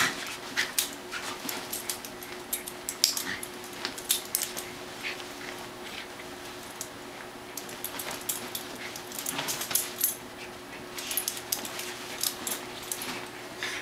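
A Schipperke and a black-and-tan puppy play-fighting over a fleece dog bed: irregular scuffling, scratching and light jingling, with occasional short dog sounds.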